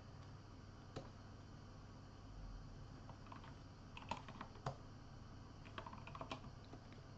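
Faint computer keyboard keystrokes, scattered clicks in small clusters, over a steady low hum.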